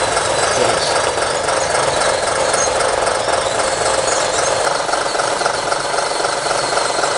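Radio-controlled scale construction machines (bulldozers and excavators) running together while pushing and digging dirt, a steady mechanical whir of their motors and gearing.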